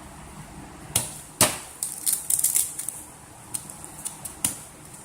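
Sanding disc being pressed onto and handled on a new hook-and-loop sander pad: a run of sharp taps and short scratchy crackles, the loudest about a second and a half in. The sander is not running.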